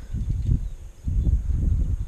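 Low, irregular rumbling and buffeting on the microphone, loudest about half a second in and again through the second half.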